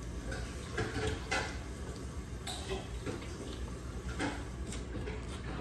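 People chewing and eating at a dinner table, with scattered small clicks and taps of a fork and plates.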